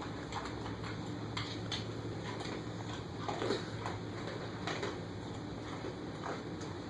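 Light, scattered clicks and taps of a utensil knocking against a dish as a toddler feeds herself, over a steady low hum.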